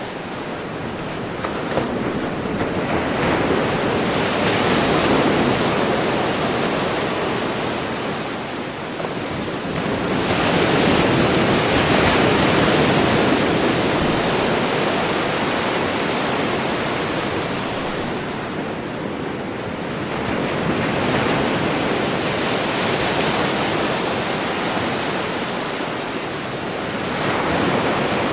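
Sea waves breaking and washing up a shore: a steady rush of surf that swells and ebbs in slow surges, about four in all.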